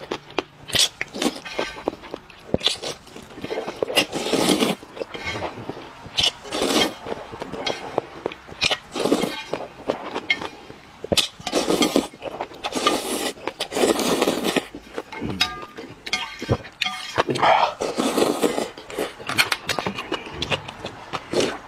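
Eating sounds: irregular chewing and crunching, broken by sharp clinks and scrapes of dishes and utensils.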